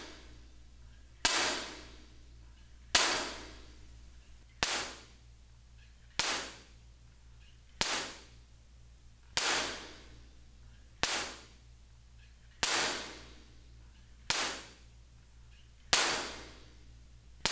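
About ten sharp claps, one every second and a half or so, recorded to compare a room's acoustics. In the bare room with flat walls each clap rings on with a long decaying reverberation tail. With absorbers and diffusers in place the claps die away much faster.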